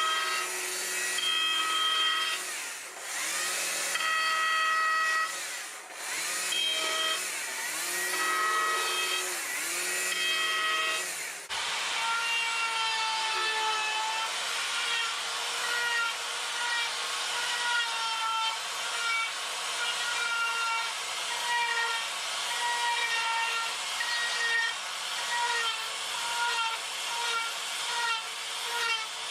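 Carving chainsaw running at high revs and biting into a wooden board, its pitch dipping as it loads in the cut and rising again several times. About eleven seconds in the sound switches abruptly to a higher-pitched power tool grinding the wood, its pitch wavering in a steady pulse.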